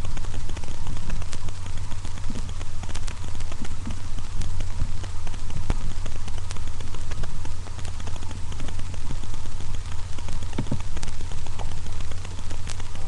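Small dog pawing and nosing at a fabric quilt, making irregular scratches and clicks over a steady low hum.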